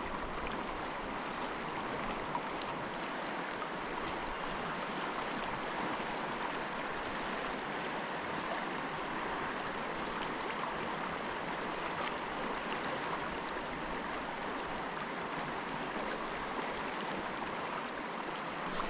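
Steady rush of a swift river current flowing over a rocky bed.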